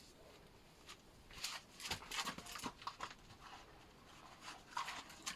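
Faint clicks and rustles of hands working the fuel hose off a lawnmower carburetor, clustered in the middle and again near the end.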